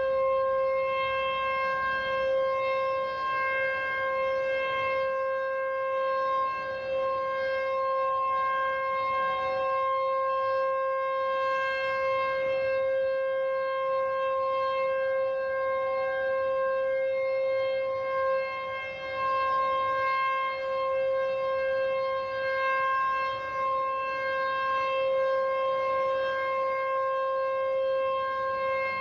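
SuperSirex outdoor warning siren sounding one steady tone for its three-minute test. The pitch holds level while the loudness swells and dips slightly.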